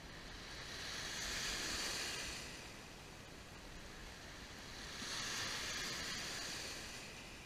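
Small waves breaking and washing up over a pebble beach: a swell of hissing surf about a second in, and another about five seconds in.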